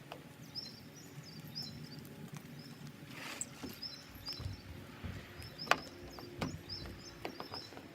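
Small bird chirping in short high groups of two or three, repeating every second or so, with a couple of sharp clicks and low handling noise.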